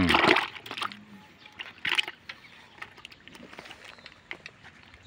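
Live fish flapping in a plastic bucket: a burst of splashing and thrashing at the start, then scattered slaps and taps, with one sharper slap about two seconds in.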